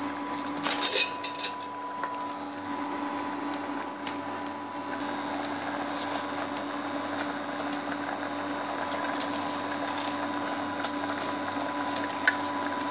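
Mutton broth boiling in an aluminium pressure cooker as soaked basmati rice is tipped in: a few clinks near the start, then the liquid bubbling with dense small pops over a steady hum.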